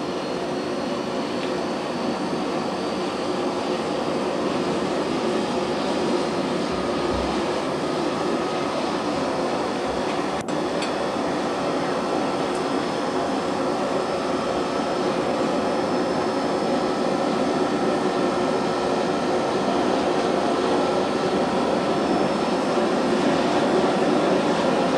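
Forge blower running steadily, blasting air into the forge fire, slowly getting louder. A single sharp click about ten seconds in.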